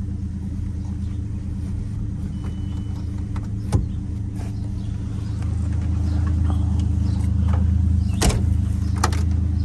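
1950 Chevrolet's 235 straight-six idling steadily, louder in the second half, with a couple of sharp knocks over it.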